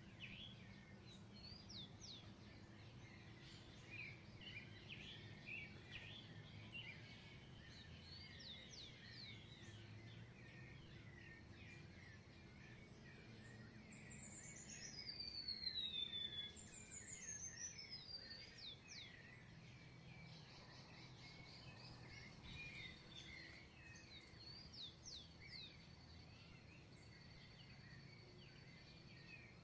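Birds singing faintly in a chorus of many short, quick chirps. About halfway through, a long clear whistle slides down in pitch, the loudest call, followed by a second shorter falling whistle; a faint low rumble runs beneath.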